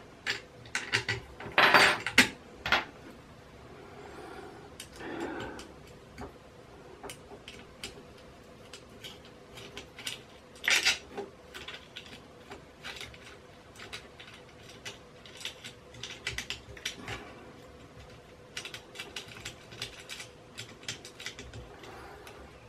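Scattered clicks and clinks of an Allen key and small metal bolts and fittings being handled while parts are undone on a Creality CR-10 3D printer's frame. There are louder clatters about two seconds in and at about eleven seconds, and quick runs of ticks later on.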